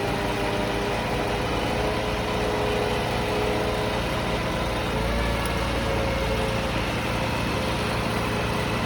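Engine of heavy tree-removal machinery running steadily, its pitch stepping up slightly about five seconds in.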